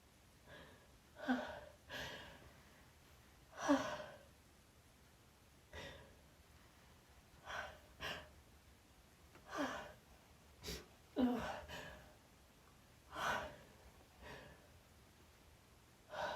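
A woman's sneezes and gasping in-breaths, about a dozen short bursts a second or two apart, set off by chhinkni, a sneeze-inducing herbal snuff.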